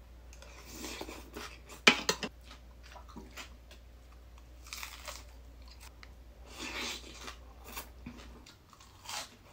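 Crunching and chewing of a mouthful of shredded cucumber salad and a sprig of fresh dill, in separate crisp bites; the loudest crunch comes about two seconds in.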